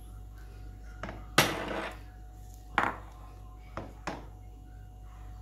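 Bowl and silicone spatula knocking and scraping against a cooking pan while moong dal paste is emptied into hot ghee: about five sharp clatters, the loudest a little over a second in with a short ring after it. A faint steady hum runs underneath.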